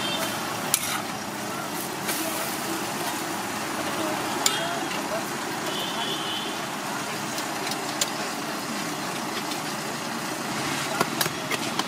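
Egg omelette frying on a large round flat griddle, a steady sizzle, with a few sharp clicks of a metal spatula on the griddle.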